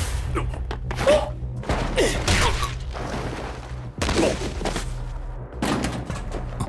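Anime soundtrack: bursts of gunfire and sharp impacts, irregularly spaced, over a steady low droning music bed.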